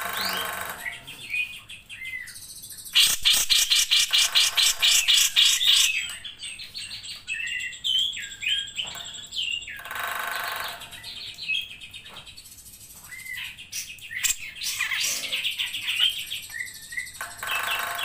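Grey-cheeked bulbul (cucak jenggot) singing a varied string of whistles and chattering notes, with a loud, fast run of repeated notes from about three to six seconds in.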